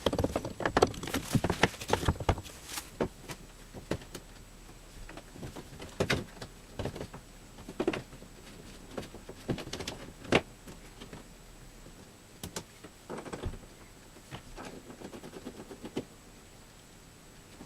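Hand work on car parts: irregular clicks, taps and knocks of small parts being handled and fitted. They come in a dense cluster in the first couple of seconds, then scattered every second or so.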